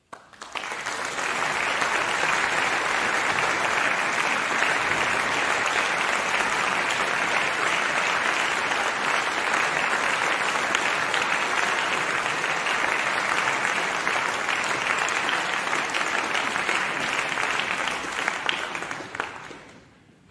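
Concert audience applauding, starting abruptly out of silence at the end of a piece, holding steady, then dying away over the last couple of seconds.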